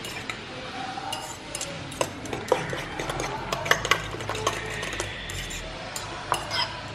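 A fork beating eggs with chopped onion, tomato and green chilli in a bowl: quick irregular clicks and scrapes of the fork against the bowl.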